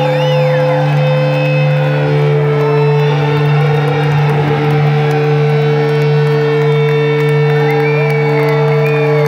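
Live rock band playing a droning passage: sustained electric guitar notes over a steady low drone, with gliding, wavering feedback-like tones above, without drums.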